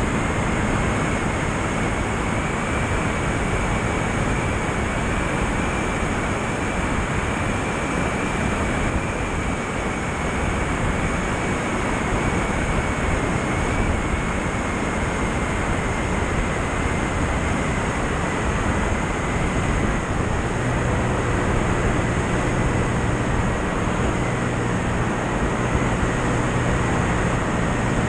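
Steady rush of airflow over an outside-mounted microphone on an aircraft in flight, with a faint high whistle throughout and a low hum that becomes steadier about three-quarters of the way through.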